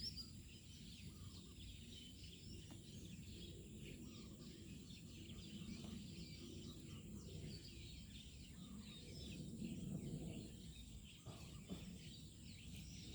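Faint outdoor ambience: small birds chirping over and over, over a low steady rumble.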